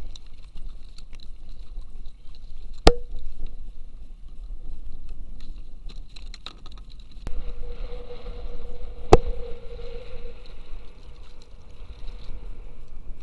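Gear being handled aboard a plastic fishing kayak: scattered small clicks and two sharp knocks about six seconds apart, each with a short ring, over a low steady rumble.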